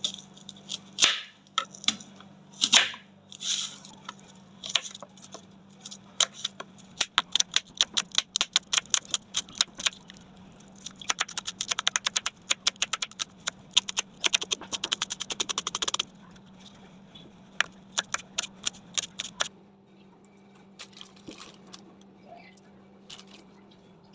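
Sharp knocks and clicks of kitchen work, scattered at first, then a fast, even run of about eight a second in the middle before thinning out, over a faint steady hum.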